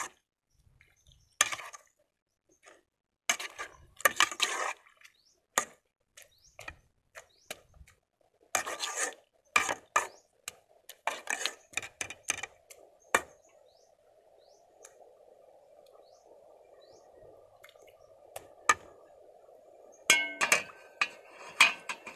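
Metal ladle clinking and scraping against the sides of an aluminium cooking pot as the soup is stirred, many sharp clinks over the first half and a short flurry near the end. In between, a steady soft hiss of the soup simmering.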